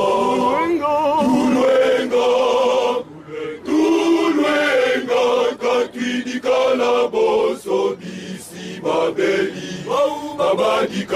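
Men's choir singing a religious song in Kikongo in several voices together, the phrases broken by short pauses about three seconds in and again near eight seconds.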